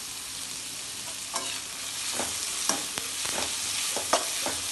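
Sliced onions sizzling in hot oil in a metal kadai while a perforated metal skimmer stirs them, scraping and clinking against the pan several times from about a second in.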